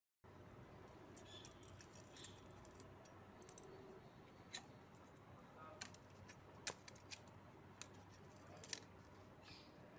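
Faint handling of steel feeler gauge blades against the valve train of an open motorcycle cylinder head during a valve clearance check: light metallic scraping and small clicks, with about six sharper clicks scattered through the second half.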